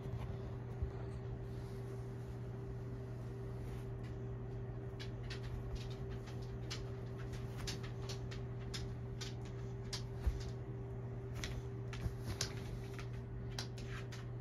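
A kitten's claws catching and scratching on a quilted comforter as she paws at it, a run of short, sharp scratchy clicks through the middle of the stretch, over a steady low hum.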